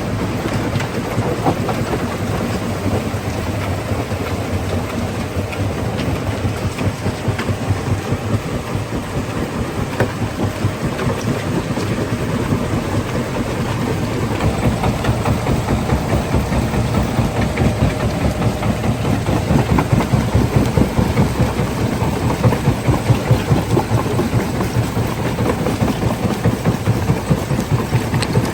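Stone crusher plant machinery running steadily: a continuous heavy rumble with a dense, fast rattle. It grows a little louder and more pulsing about two-thirds of the way through.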